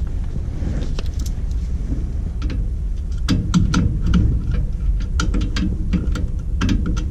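Scattered sharp metallic clicks and ticks of a hand tool working a screw on the furnace, over a steady low rumble; the screw's head is stripped.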